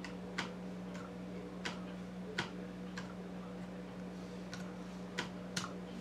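Scattered key presses on a compact Bluetooth keyboard with low-profile chiclet keys: about eight single clicks at uneven spacing. A steady low hum runs underneath.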